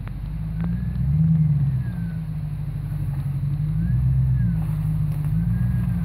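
Lifted Jeep SUV's engine rock-crawling on a snowy trail, revved in repeated throttle blips whose pitch rises and falls several times.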